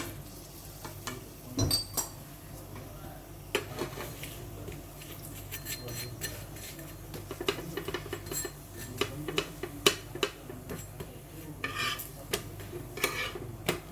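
Metal spatula clinking, tapping and scraping on a tava as small parottas are cooked on it, in scattered irregular knocks that come thicker near the end.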